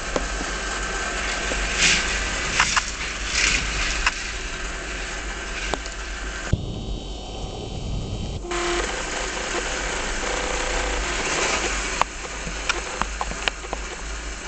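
K'nex roller coaster running: its small chain-lift motor whirs steadily, with scattered clicks and rattles of plastic parts. A little past halfway the sound goes muffled for about two seconds.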